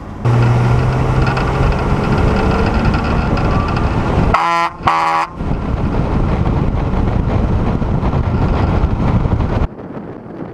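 Loud, steady rushing of a vehicle on the move, starting and stopping abruptly. A little over four seconds in, two short, loud horn blasts sound one after the other.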